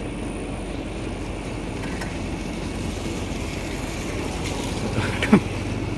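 Steady low drone of a sewer suction and jetting machine running, with one short, loud sound falling in pitch a little after five seconds in.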